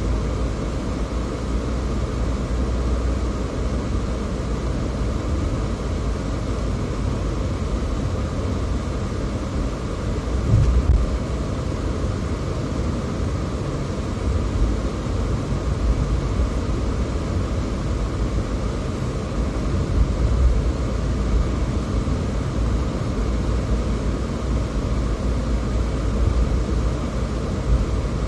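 Steady low rumble of a car driving: engine and tyre noise on the road, with a brief low thump about ten seconds in.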